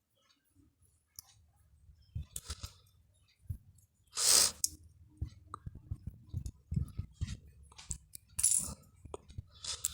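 Hands working the wires of a Cat 6 cable, straightening them one by one: irregular small clicks, scrapes and rustles, with a louder scraping rustle about four seconds in and another near the end.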